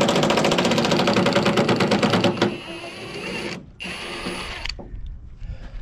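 Milwaukee impact wrench hammering rapidly on a bolt for about two and a half seconds, then two short runs without hammering, the bolt now loose.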